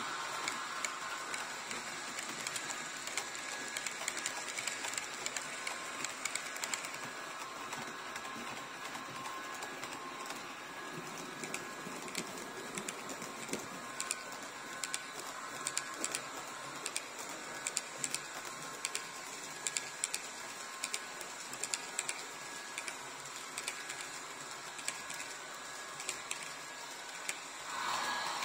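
HO scale model freight train rolling past on the track: a steady running whirr with frequent sharp clicks of the wagon wheels crossing rail joints, the clicks coming thickest around the middle.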